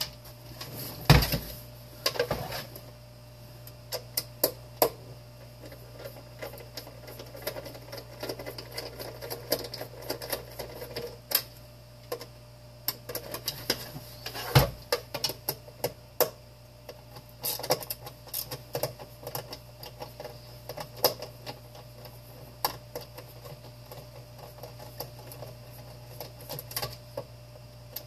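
Irregular clicks, taps and knocks of hand tools and plastic housing parts being handled while a broken electric space heater is taken apart, over a steady low hum.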